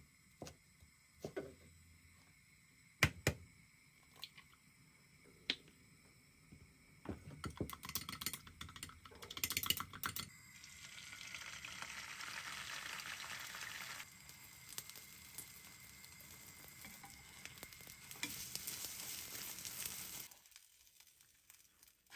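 A knife chopping spring onions on a cutting board, a few sharp separate chops, then a quick clatter of chopsticks beating egg in a glass mug. About ten seconds in, the beaten egg is poured into a hot nonstick frying pan and sizzles loudly, eases, swells again, then stops suddenly.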